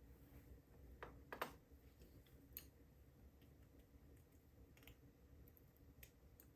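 Faint, scattered small clicks of metal lock pins and tools being handled as a PACLOCK UCS-2A padlock is taken apart, about five clicks over several seconds.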